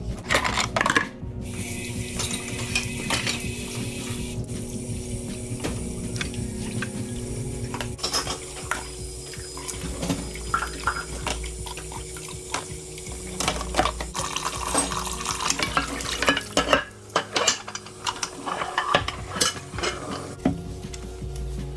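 Cutlery and dishes clattering as a dishwasher basket is loaded, then dishes and pans knocking together and being rinsed under a running tap in a kitchen sink.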